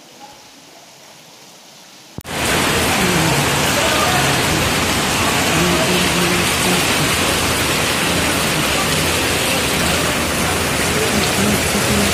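Heavy rain pouring down: a steady, loud hiss of rain that starts abruptly about two seconds in, after a much quieter stretch.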